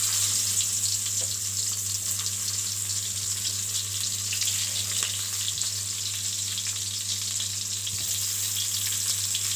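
Small whole slit brinjals sizzling and crackling as they fry in oil in a kadai, with a steady low hum underneath.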